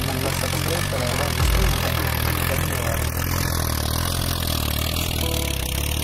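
Swaraj tractor's diesel engine running steadily under load while it pulls a plough through dry soil.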